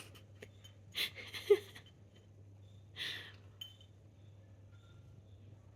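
A cat working at a treat puzzle toy: a few short rustling scrapes and one sharp click about a second and a half in, over a faint steady hum.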